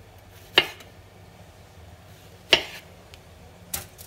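Chef's knife cutting through a yellow tomato and knocking on a plastic cutting board: three sharp knocks, the last one softer.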